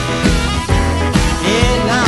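Blues band playing live: a harmonica leads with bending notes over an archtop guitar and an upright bass.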